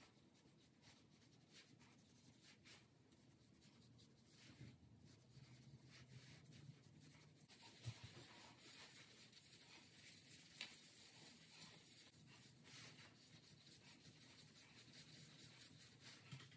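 Very faint scratchy strokes of a tint brush spreading bleach onto the roots of locs, with soft rubbing of gloved hands, over near-silent room tone.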